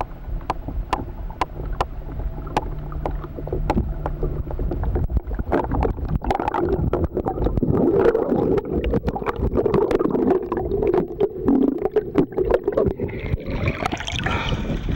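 Water heard from underwater beneath a sailboat's hull: a muffled rumble with many scattered sharp clicks, and a low steady hum during the first few seconds. Near the end the camera breaks the surface and the sound opens up into brighter splashing water.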